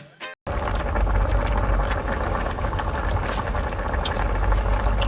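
The tail of the music fades and cuts off about half a second in. Then comes a steady, deep rumbling background noise with a few faint clicks.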